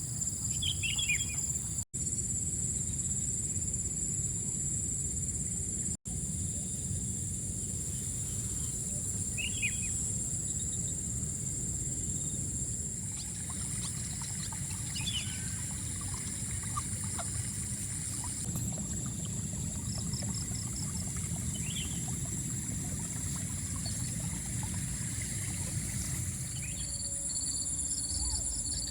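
Rural outdoor ambience: a steady, high-pitched chorus of insects such as crickets, with brief bird chirps every few seconds over a low rumble. The sound cuts out for an instant twice, about two and six seconds in.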